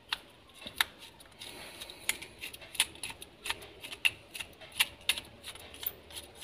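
Screwdriver clicking against a small nut and the body of a household electrical switch as the nut is undone: a string of sharp, irregular clicks, roughly one or two a second.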